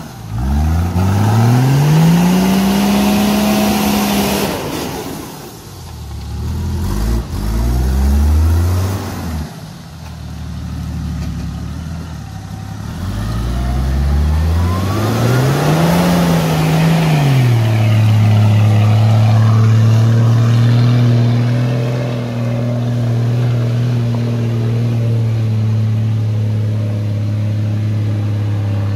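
An off-road vehicle's engine revving up and dropping back twice, then held at steady high revs for about the last ten seconds.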